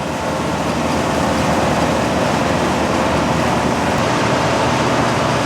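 Deutz-Fahr M2780H combine harvester working, its air-cooled six-cylinder Deutz diesel and threshing machinery making a steady, dense mechanical din with a faint steady whine. It grows slightly louder in the first second.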